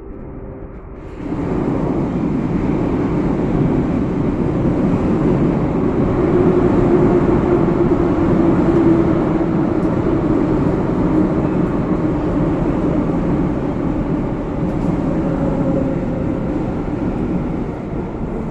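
Moscow metro train running in beneath the bridge: a loud, steady rumble of wheels on rails and running gear. It starts suddenly about a second in and eases off slightly near the end.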